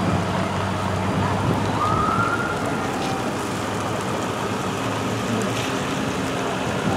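Fire department pickup truck's engine running as it drives slowly past towing an enclosed trailer, with a short rising siren whoop about two seconds in.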